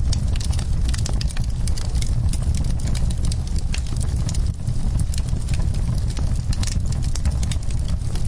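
Wood-burning fire crackling, with many small sharp pops and snaps, several a second, over a steady low rumble of the flames.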